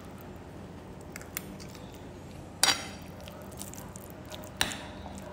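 Steady outdoor background with a few sharp clicks or clinks: a loud one with a short ring about two and a half seconds in, another just before five seconds.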